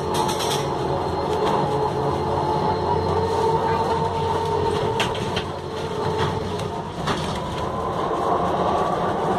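City bus in motion heard from inside the passenger cabin: a steady drone from the engine and drivetrain, with a whine and sharp rattles from the interior fittings. The whine rises in pitch about seven seconds in.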